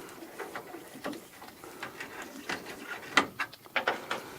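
Light clicks and taps of a screwdriver backing out and lifting away small screws from plastic trim, with a quick run of sharper clicks about three seconds in.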